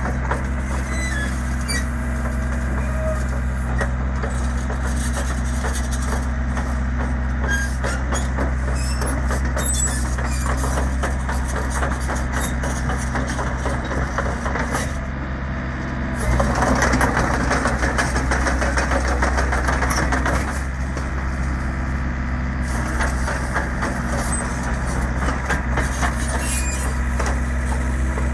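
Hyundai R55-7A mini excavator's diesel engine running steadily while the boom and arm are worked, with small clanks and rattles throughout. For about four seconds a little past the middle it runs louder and rougher.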